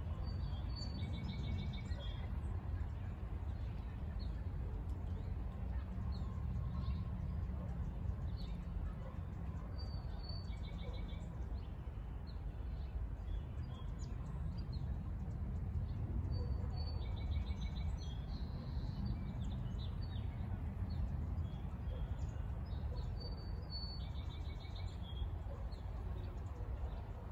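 Light rain falling on a pond, over a steady low rumble. A bird calls in four short bouts of high chirps, spaced several seconds apart.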